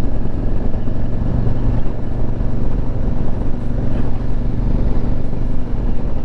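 KTM 1190 Adventure R's 75-degree V-twin engine running steadily as the motorcycle is ridden at an even pace.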